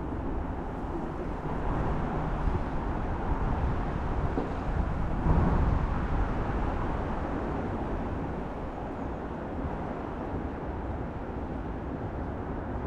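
Steady, low outdoor background noise with no distinct events, a slight swell about five seconds in.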